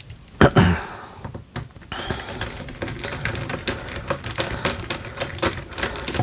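A heavy knock about half a second in, then a run of quick, irregular light clicks and taps, like small hard parts and tools being handled on a bench.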